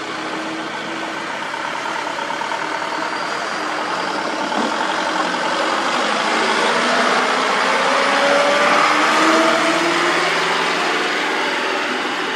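Diesel engine of a loaded Mitsubishi Fuso Colt Diesel dump truck accelerating as it pulls away past. The pitch rises as it picks up speed, and it grows louder toward a peak about nine seconds in, then eases slightly as it moves off.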